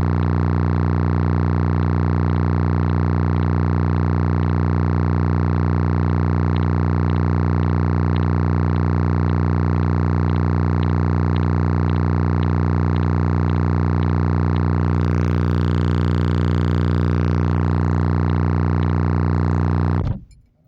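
A 30 Hz bass test tone played at high power through three 15-inch Slapz Audio Oblivion subwoofers, heard as a loud, steady, distorted drone with faint regular ticks over it. It cuts off suddenly near the end.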